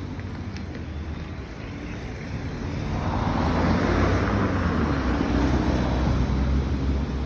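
A road vehicle driving past, its engine and tyre noise swelling about three seconds in, holding, then easing off near the end, over a steady low rumble.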